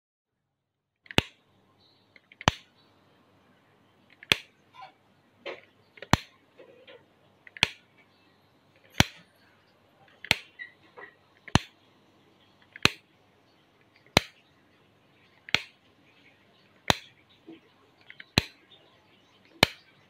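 Wall rocker light switch being flicked repeatedly, starting about a second in: a sharp click roughly every second and a half, with fainter clicks between some of them.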